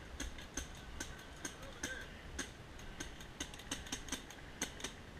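Paintball markers firing in the distance: a steady patter of sharp, irregular pops, several a second, bunching closer together in the second half.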